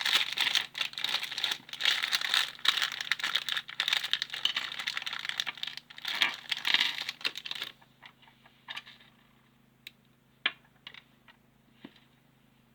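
Packaging crinkling and rustling as it is handled and opened, for about eight seconds, then a few small scattered clicks.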